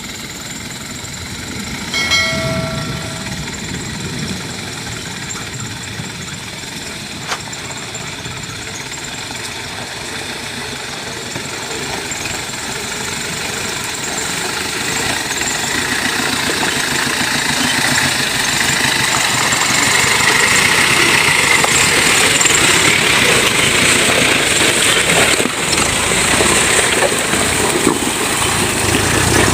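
A motor vehicle's engine running, getting steadily louder through the second half, with a brief pitched tone about two seconds in.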